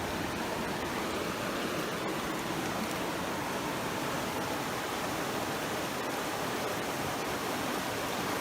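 Creek water rushing steadily, an even, unbroken noise.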